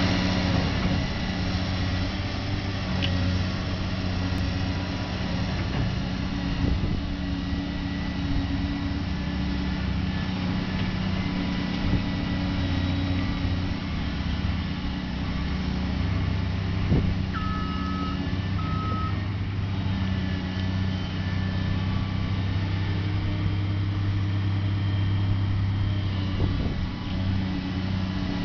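Caterpillar 345C L excavator's diesel engine running steadily as the machine digs and swings its bucket, the engine note shifting with the hydraulic load. A few short beeps sound about two-thirds of the way in.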